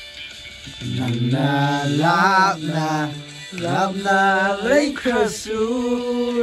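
A man singing slow, drawn-out notes that waver and glide, in long phrases with short breaks.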